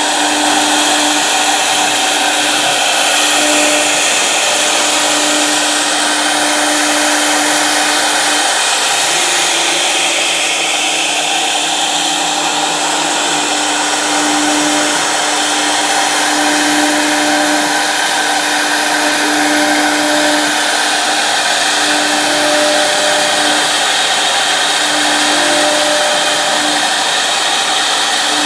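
CNC router running, its high-speed spindle giving a loud, steady rushing noise with a humming tone that fades in and out.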